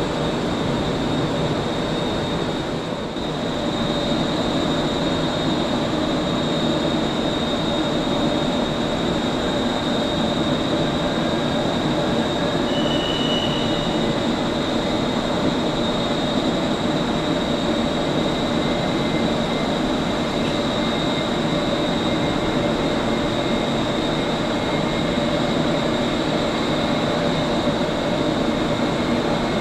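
Steady mechanical running noise: a constant rumble with a high, even whine over it, unchanging throughout.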